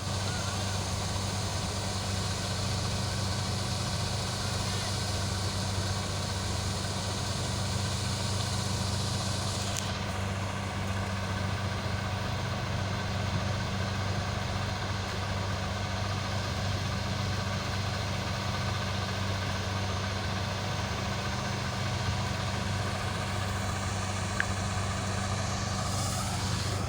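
Cutter machine running with a steady low hum. About ten seconds in, a high hiss over the hum drops away, and a short rising whine comes near the end.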